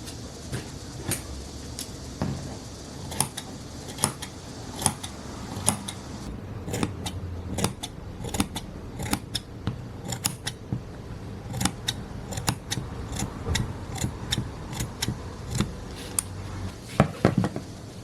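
Scissors snipping through fabric: an irregular run of sharp clicks, a few a second, with a cluster of louder snips near the end.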